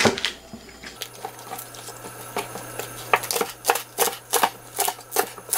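Kitchen knife chopping a large green onion on a wooden cutting board: a run of sharp knife strokes against the board, coming about two to three a second from about a second in.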